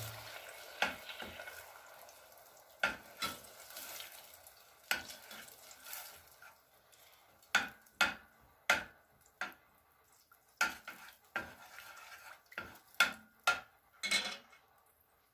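A spoon stirring melting butter and honey in a pot, knocking and scraping against the pot in sharp, irregular clicks. A faint sizzle under it fades away over the first few seconds.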